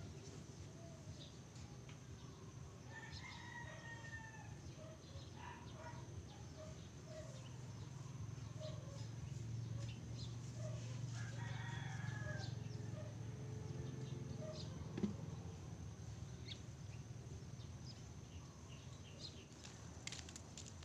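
A rooster crowing twice, about three seconds in and again about eleven seconds in, over a steady low hum.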